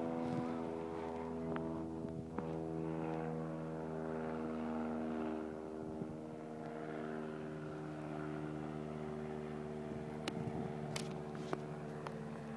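A steady mechanical drone at an even pitch, like an engine or motor running, with a few light clicks near the end.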